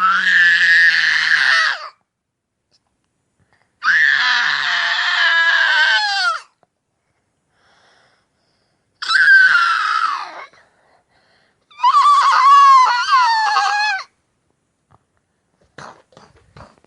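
A child roaring like a dinosaur: four long, high-pitched screeching roars of about two seconds each, with pauses between them, followed by a few faint clicks near the end.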